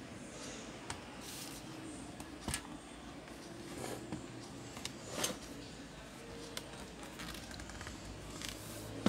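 An HP EliteBook 840 laptop being handled and turned over on a workbench gives off scattered light clicks and knocks, the two loudest about two and a half and five seconds in, over a steady low hum.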